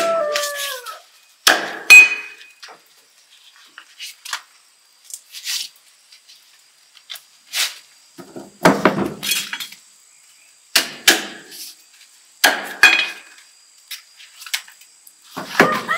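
A cleaver chopping the ends off ears of fresh corn on a round wooden chopping block: sharp, irregular knocks a second or two apart, the loudest about two seconds in.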